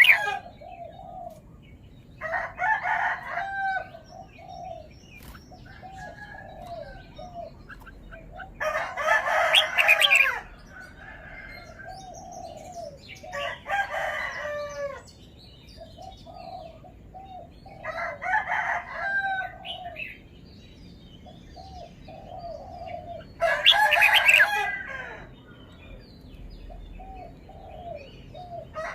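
Red-whiskered bulbul singing: loud phrases of about a second and a half repeated every four to five seconds, with softer short notes in between.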